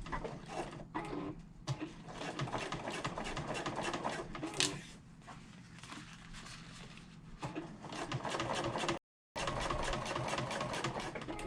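Sewing machine running in runs of fast stitching as it topstitches a fabric strap seam open, pausing for a few seconds in the middle before stitching again.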